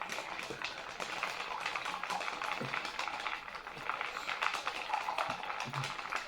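Close-miked mukbang eating sounds: a dense, steady run of small crunches and crackles that stops near the end.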